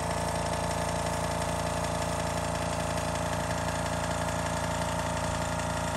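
Small airbrush air compressor running with a steady mechanical hum, kicked on by the air the airbrush has drawn.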